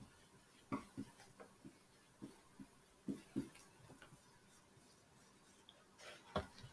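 Faint, irregular light taps and clicks of small handling at a desk, with one louder knock near the end.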